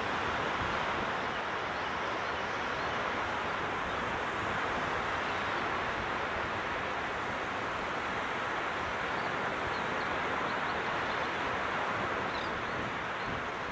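Gentle ocean surf washing onto a beach, a steady even hiss with no breaks.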